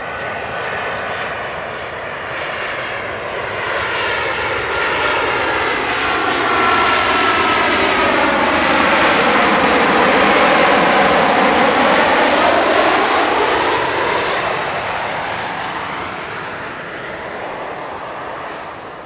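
Boeing 737-800's CFM56-7 turbofan engines on landing approach passing low by: a steady jet roar that builds to its loudest about ten to twelve seconds in, with a swirling, sweeping tone through it, then fades as the airliner descends toward the runway.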